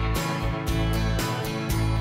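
Background music: a guitar-led country-style tune with a steady beat.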